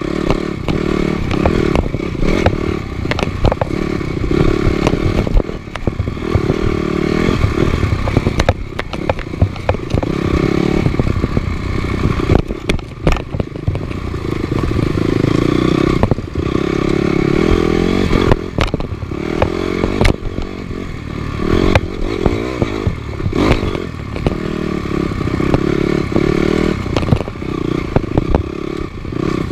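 Off-road motorcycle engine running, its revs rising and falling every few seconds, with many sharp knocks and rattles.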